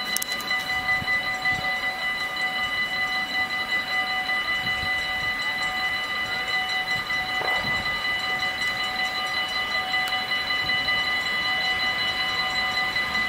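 Distant SBB Cargo ES 64 F4 (Siemens class 189) electric locomotive hauling a long container train as it approaches, a low even rumble. A steady high-pitched whine of several tones holds unchanged throughout.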